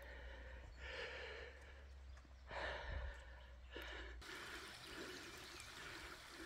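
A hiker breathing hard on a steep uphill climb, with a few heavy breaths in the first four seconds and softer, more even sounds after.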